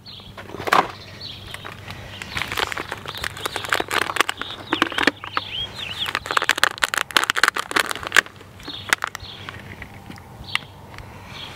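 Thin plastic seedling cell packs and loose potting soil crackling and rustling as seedlings are pulled out and planted by gloved hands, in dense irregular clicks that are busiest just past the middle. Short bird chirps come through in the background.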